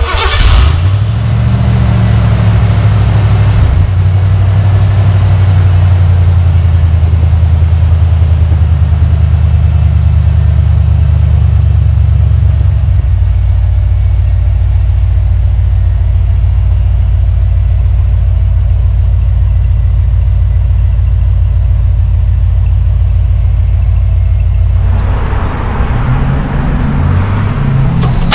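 Ford Bronco engine idling through a new 3-inch cat-back exhaust with a Flowmaster 40 muffler, a steady deep rumble. It comes in sharply right at the start, and the sound widens briefly near the end.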